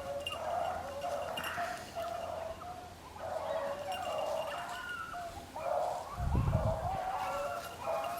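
A pack of beagles baying on a rabbit's trail, several dogs giving short overlapping bays in a continuous cry. A low bump comes about six seconds in.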